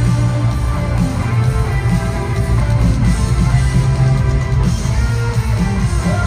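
Live pop band playing an instrumental passage at full volume, guitar over a heavy, steady bass line, with no vocals.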